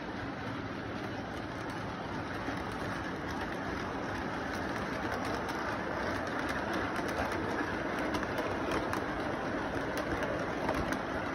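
Model train running past on its track: a steady rumble of wheels and motor with irregular clicks from the rail joints, growing a little louder as the cars come by.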